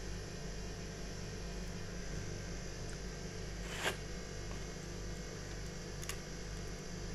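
A steady low hum, with one short sharp click a little before the middle and a fainter click about two seconds later.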